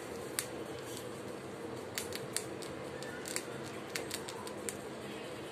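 Pet rat crunching hard food with its incisors: sharp, irregularly spaced crunches and clicks.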